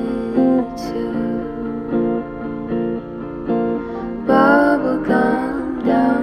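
Background music: a song played on acoustic guitar, plucked and strummed in a steady rhythm, growing fuller about four seconds in.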